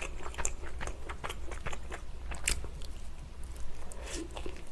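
Close-miked biting and chewing of a cheese and steak pizza slice: a string of small wet mouth clicks and light crunches, with a louder crunch about halfway through.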